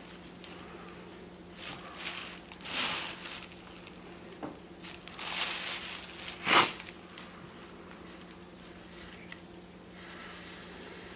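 Nylon paracord rustling and rubbing as hands pull it through a Turk's head knot on a wooden paddle handle: several soft swishes, with a sharper, louder rub about two-thirds of the way through. A low steady hum runs underneath.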